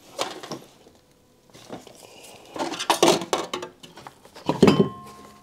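Metal hand tools and parts clinking and clattering in irregular bursts while the turbo's oil lines, V-band clamp and manifold nuts are undone. Near the end a sharper clank leaves a brief metallic ring.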